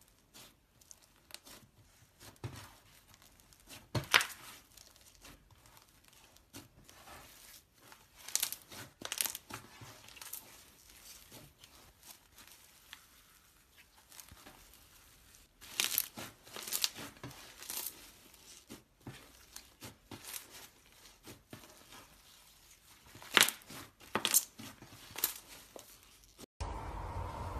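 Hands pressing and squeezing slime, including floam packed with tiny foam beads, giving quiet crackling and popping with scattered sharp snaps. Near the end the crackling stops and a louder steady noise takes over.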